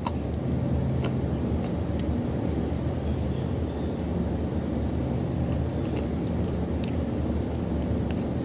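A steady low machine hum drones on without change, with a few faint clicks over it.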